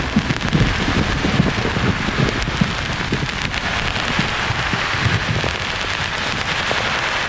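Steady rain-like white-noise hiss with low thunder rumbling underneath, the rumble dying down over the first few seconds.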